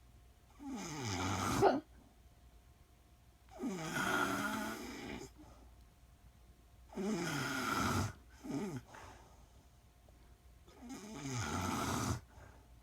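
A woman snoring in her sleep: four snores, each a second or more long, coming about every three and a half seconds.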